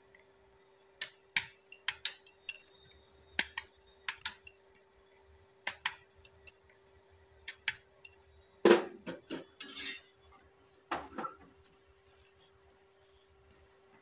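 Glass bangles clinking, with small clicks of hand and dough against the plate, as a hand presses and spreads paratha dough, in irregular sharp ticks. Louder clattering about nine and eleven seconds in, over a faint steady hum.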